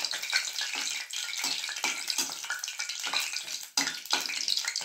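Whole spices (bay leaves, cloves and cardamom) sizzling and crackling as they fry in hot oil in a kadai. A steel slotted spatula scrapes and taps against the pan as they are stirred.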